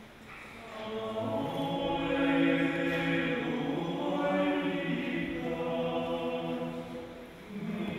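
Choir singing sustained chords. It swells in about a second in and breaks briefly for breath between phrases about seven and a half seconds in.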